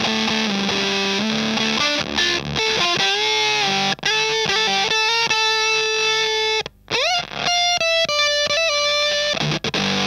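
Electric guitar through a DIY Tonebender MkII clone fuzz pedal, boosted by an overdrive pedal in front, playing a fuzzy lead line of sustained notes with string bends. The line stops briefly about two thirds of the way through and comes back with a note bent upward.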